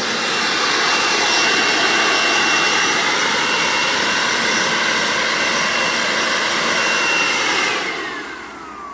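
Corded electric leaf blower running steadily with a high whine over the rush of air, then switched off near the end, its motor winding down with a falling whine.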